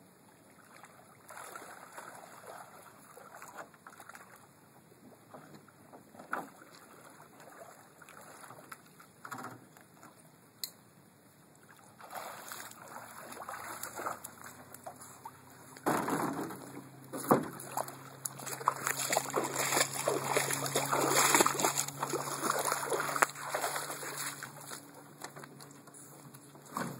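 Water slopping and splashing around an aluminum canoe in the shallows. Then, from about halfway, the hull scrapes and grinds as the canoe is dragged out of the water and up the boat ramp. The scraping is the loudest part, with a low metallic hum running under it.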